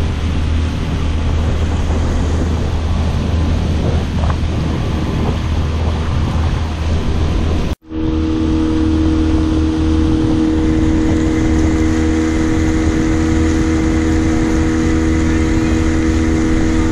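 A pontoon boat's motor running steadily under way, mixed with rushing air and water. It cuts out for a moment about eight seconds in, then comes back as a steadier hum with a clear pitch over the churning wake.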